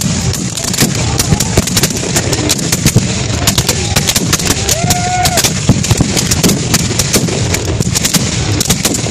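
Black-powder musket fire from a line of reenactors, many shots a second, overlapping and irregular, with distant shouting underneath. A brief yell rises above the firing about five seconds in.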